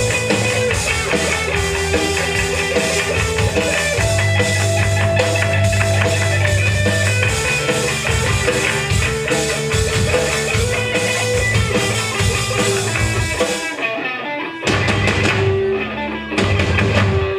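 Live punk rock band playing an instrumental break on guitar, bass and drum kit, with no singing. Near the end the band cuts out in a couple of short stop-start breaks.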